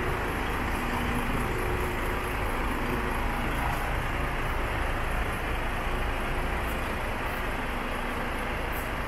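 Steady low rumble of a heavy diesel engine idling, the DAF XF105's Paccar MX engine, with no revving or change in pitch.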